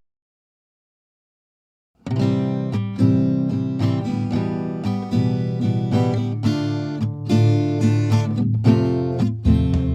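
Silence for about two seconds, then background acoustic guitar music with plucked notes starts and plays on.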